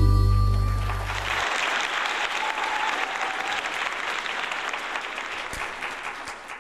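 The last chord of the song rings out and stops about a second in, and the congregation applauds, the clapping thinning out near the end.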